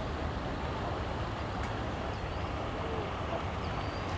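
Steady low rumble of running engines, with a faint click about one and a half seconds in.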